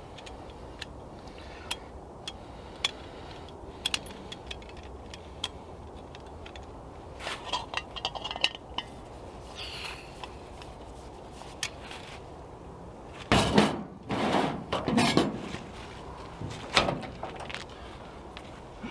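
Short metallic clicks and clinks of a small folding camping gas stove being handled and fitted onto a gas canister, with a few louder knocks and clatter about two-thirds of the way through.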